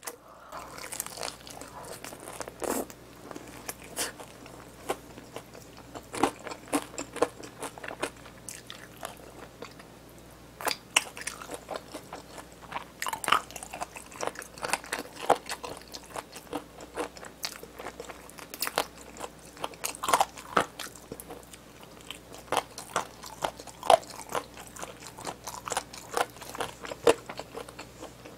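Crunching and chewing of a crispy fried chicken drumstick coated in cheese seasoning powder, with irregular crackles as the crust breaks between the teeth.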